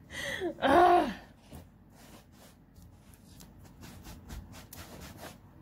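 A cat meows once, a short call that rises and then falls in pitch. After it come a series of light clicks and taps.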